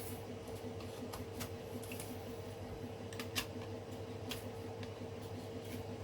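Scattered light clicks and scrapes of 3D-printed plastic pieces being handled and trimmed by hand, over a steady electrical hum.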